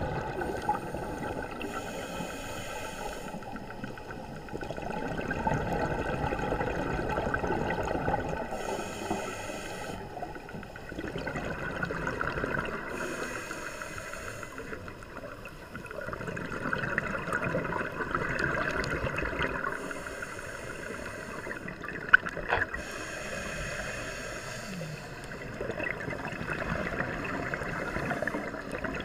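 Underwater sound of a scuba diver's regulator: exhaled bubbles burst out every few seconds over a steady watery rumble. One sharp click about two-thirds of the way through is the loudest sound.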